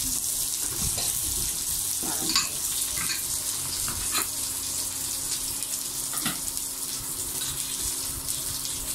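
A cleaver chopping spring onions on a wooden cutting board, a handful of separate knife strikes over the first two-thirds, over a steady hiss of food cooking on the heat.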